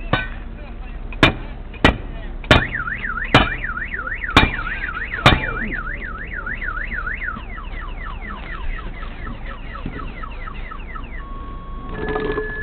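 Car alarm sounding: a fast up-and-down warble, then a run of quick falling chirps, then steady beeps near the end. Seven sharp bangs, the loudest sounds, land over the first five seconds or so.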